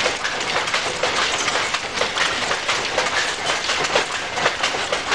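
Industrial weaving loom running, a steady, dense mechanical clatter of rapid repeated knocks.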